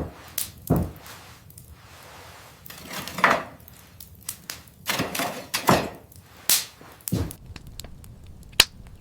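A series of irregular knocks and thuds, about seven over several seconds, some sharp and some duller.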